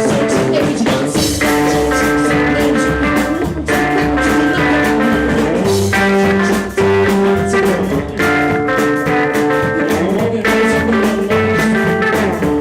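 Rockabilly band playing live: guitar over a driving drum beat and bass line, in an instrumental passage.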